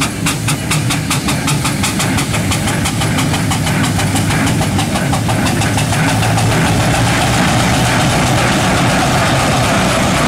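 Steam roller on the move: quick, regular exhaust chuffs, several a second, that blur after a few seconds into a steady, louder rush of steam with a low mechanical rumble as it comes close.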